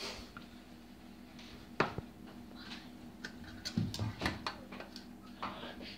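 Kitchen tongs clicking and scraping against a metal roasting tray as pieces of roast ribs and chicken in gravy are picked up. Scattered sharp clicks, the loudest about two seconds in and a busier run around four seconds, over a steady low hum.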